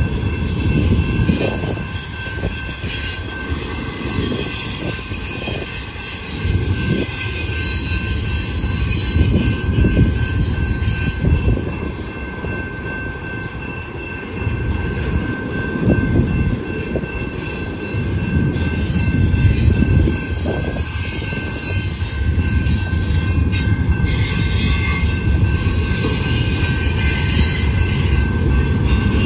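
Double-stack intermodal container cars rolling past on the rails: a heavy low rumble of wheels on track that swells and eases as the cars go by, with a thin steady high tone held over it.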